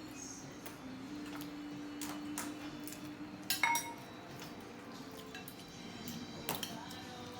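Cutlery clinking and tapping against a plate during a meal: scattered light clicks, with one sharper clink that rings briefly about three and a half seconds in.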